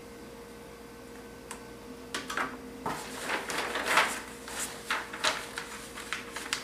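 Paper pattern sheets rustling and crinkling as hands fold and press them flat on a table, the dart being folded out of the pattern. The paper noise starts about two seconds in, after a stretch with only a faint steady hum.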